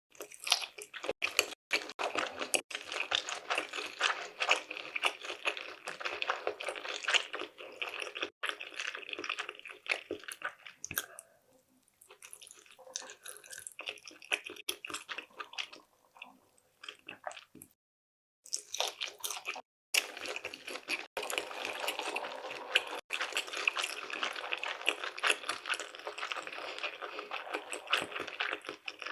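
Close-miked chewing of sushi: dense wet, sticky mouth clicks. It goes quieter for a stretch in the middle, with two short dead-silent breaks.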